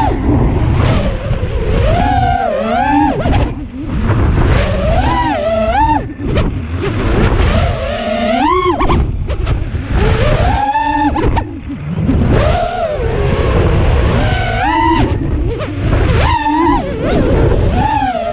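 Boldclash 2306 2700kv brushless motors and propellers of a 5-inch FPV racing quad whining in flight, the pitch rising and falling again and again with each throttle punch. Heavy wind rush on the onboard camera's microphone runs underneath.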